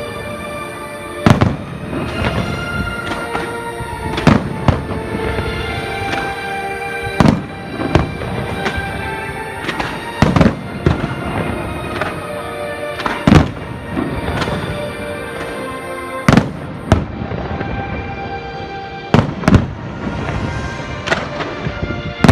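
Fireworks shells bursting with sharp bangs every second or two, over music playing throughout.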